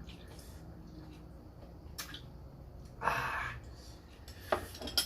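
Quiet sounds of a person eating at a table: a few light clicks and taps of utensils or dishes, and a short breathy noise about three seconds in.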